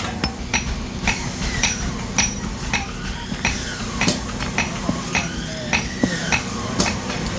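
Small hammer tapping on metal in steady strokes, about two a second, each strike with a short metallic ring, over a steady low hum.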